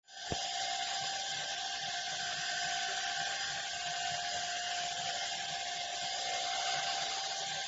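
Cordless handheld vacuum cleaner's motor switched on, with a click just after it starts, then running with a steady high whine.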